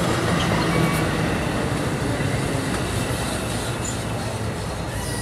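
NJ Transit Multilevel bilevel passenger coaches rolling past as the train pulls into the station, a steady rumble of wheels on rail that slowly fades as the rear cab car goes by.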